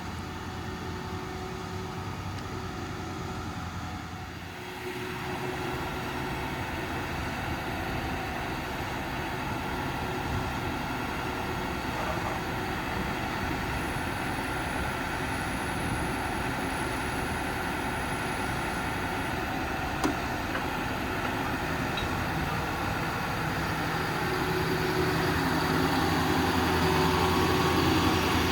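Ford F-550's 6.7 diesel engine running steadily while it powers the hydraulic crane, growing louder over the last few seconds. A single sharp click about twenty seconds in.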